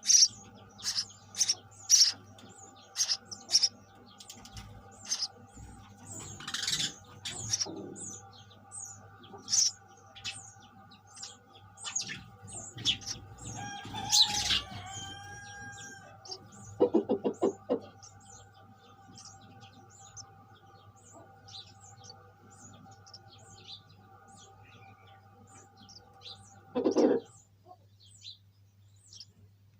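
Sparrows chirping in short, high chirps, about two a second at first and thinning out later, over a steady low hum. Two louder, lower sounds stand out: a quick rattle of pulses about halfway through and a single short sound near the end.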